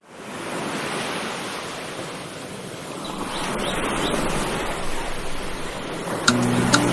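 Ocean surf washing ashore, fading in at the start and swelling and easing, with a few faint chirps partway through. Music with steady low notes comes in near the end.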